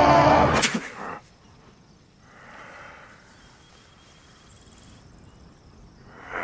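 Soundtrack music cuts off under a second in, leaving faint outdoor wilderness ambience with a thin insect-like chirp and a soft rustle. A short sound comes near the end.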